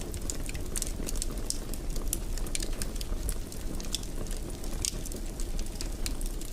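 Wood fire crackling in a fireplace: frequent small, irregular pops and snaps over a steady low rumble of burning.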